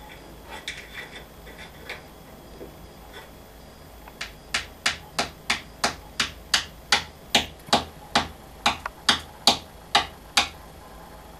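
African grey parrot tapping its beak down on the sill, a steady run of sharp knocks about three a second that starts about four seconds in and stops shortly before the end, after a few faint scattered clicks.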